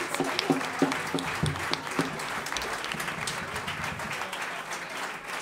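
Audience applauding after a live performance, a dense clapping that slowly thins out and grows quieter.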